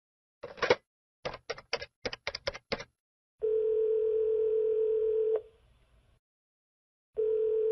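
A phone number being dialled with a quick run of about eight button clicks, then the ringback tone of the called line ringing: one steady ring of about two seconds, a pause, and a second ring starting near the end.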